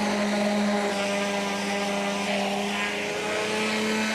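Small electric hand planer running steadily, a constant motor whine over a hiss, as it rounds off the edge of a timber piece. The pitch sags briefly about three seconds in.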